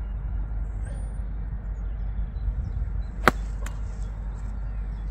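A golf iron strikes a ball off a tee mat: one sharp, crisp click about three seconds in, with a fainter click just after it. Under it, a steady low rumble of wind on the microphone.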